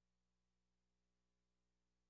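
Near silence: only a faint, steady electrical hum and hiss.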